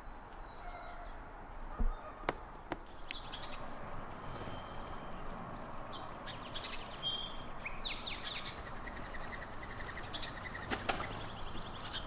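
Small songbirds calling, with a run of high chirps and twitters through the middle, over a steady outdoor hiss. A few sharp clicks and a short knock come in the first few seconds, and more clicks near the end.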